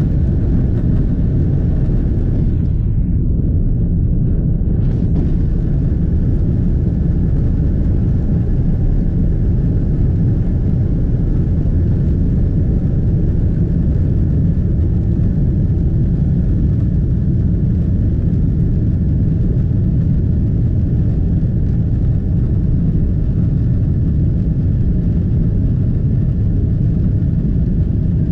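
Boeing 777-200 jet engines at takeoff thrust, heard from inside the cabin beside the wing, with the rumble of the takeoff roll: a loud, steady, deep noise that holds through the climb-out.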